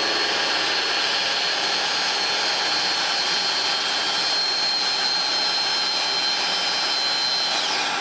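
Milling machine facing an aluminium plate: steady cutting and motor noise with a high whine, which ends in a falling glide near the end.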